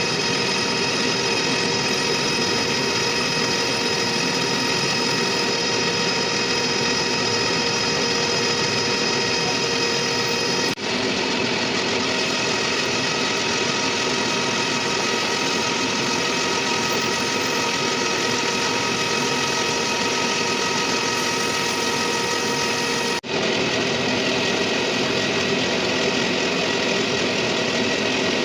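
Machine tool running steadily while machining a metal crane bearing flange: a continuous hum with several held tones over a noisy bed. It drops out very briefly twice.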